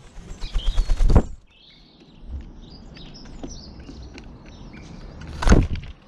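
Feral pigeon's wings clattering in a rapid run of flaps for about a second, then another short burst of wing flapping near the end. Small birds chirp faintly in between.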